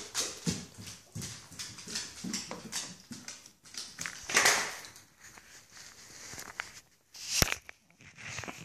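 A Weimaraner's claws clicking on a hardwood floor as it walks about, in many short, sharp ticks. There is a brief louder rustle about four and a half seconds in and a single sharp knock near the end.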